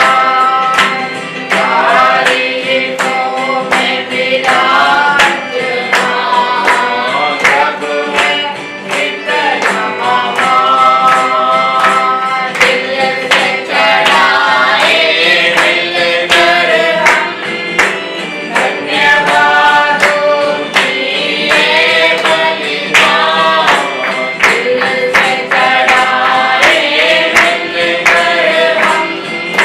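A worship song: voices singing a melody over instrumental backing, with a steady percussion beat.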